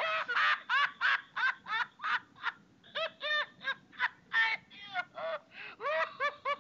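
A squeaky, high-pitched chattering voice: quick syllables, a few a second, each rising and falling in pitch, like sped-up cartoon speech.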